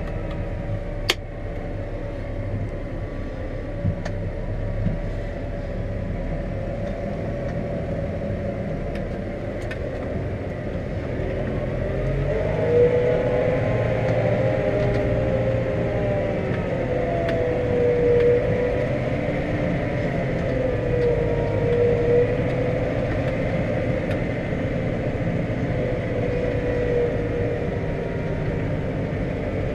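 Steyr 4130 Profi CVT tractor's diesel engine running steadily under load, heard from inside the cab, with a wavering whine coming and going through the middle. A sharp click about a second in.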